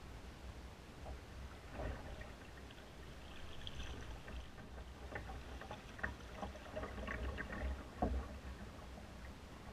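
Double-bladed kayak paddle dipping and pulling through the water, a stroke about every two seconds, with splashes and drips off the blades, over a steady low rumble.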